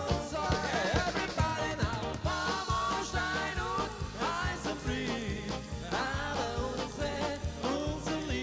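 Live band music from a brass-led dance band: trumpet, saxophone and trombone playing a wavering melody over a drum kit's steady beat.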